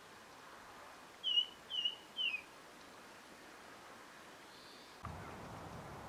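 Ring ouzel singing three short, clear whistled notes about half a second apart, each dipping slightly in pitch.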